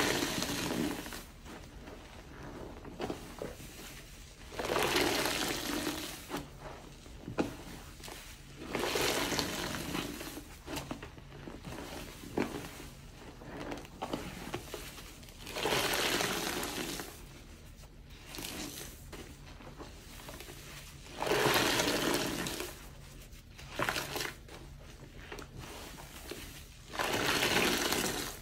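A soapy cube-cut sponge being squeezed and wrung in a basin of sudsy water, water gushing out of it in loud bursts of a second or two about every five seconds, with quieter squishing and splashing between squeezes.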